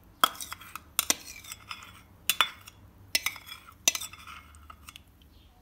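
Spoon clinking and scraping against glass bowls as mayonnaise is scooped out, with a series of sharp clinks about one every second or so.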